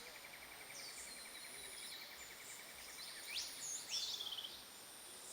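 Birds calling outdoors: a rapid even trill for the first few seconds, then several quick falling whistled calls, over a steady high insect hum.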